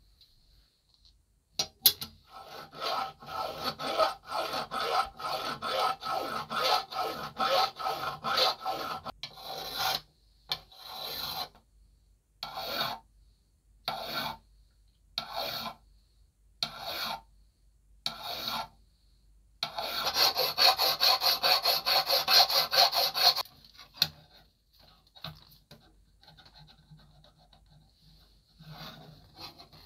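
Rusty steel blades of old giant scissors scraping against each other in repeated strokes. First a quick run of a few strokes a second, then slower single strokes, then another quick run that stops about two-thirds of the way through.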